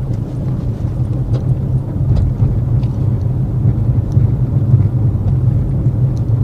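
Ford Mustang 2.3T on the move, heard from the cabin: a steady low drone of engine and tyres on the road, with a few faint light ticks from the rear suspension, which is being checked for knocking after a coilover swap.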